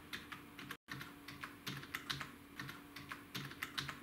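Computer keyboard keys tapped one after another, a few keystrokes a second, as a password is typed in. The audio drops out for a moment just under a second in.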